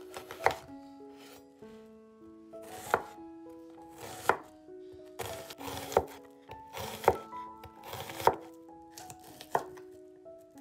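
Chef's knife slicing a red onion on a wooden cutting board: the blade crunches through the onion and knocks on the board with each cut, about seven sharp knocks a second or more apart.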